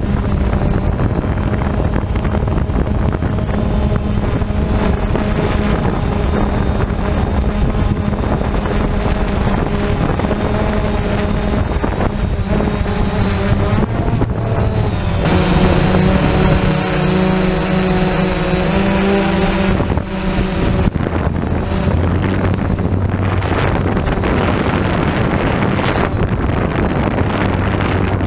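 DJI Phantom quadcopter's motors and propellers buzzing steadily close to the microphone, with wind noise over it. The pitch of the buzz shifts about halfway through and again a few seconds later as the motors change speed.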